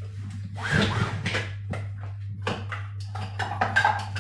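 Scattered light clicks and knocks over a steady low hum, with a brief faint voice about a second in.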